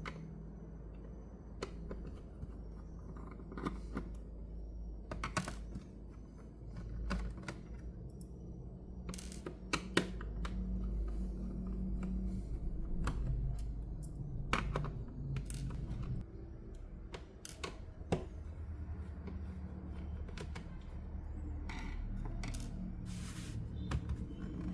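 Irregular small clicks, taps and rattles of tools and screws on a laptop's plastic case as it is being taken apart.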